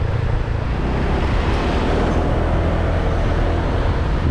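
Motorbike running steadily along a road, heard as a continuous low rumble of engine and wind on an action camera's microphone.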